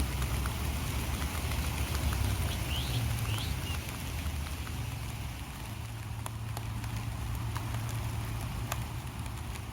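Light rain falling steadily, with scattered drops ticking and a low rumble underneath. Two short rising chirps come about three seconds in.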